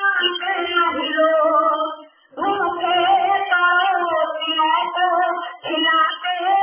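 A woman singing a devotional bhajan in long, wavering held notes, breaking off briefly about two seconds in.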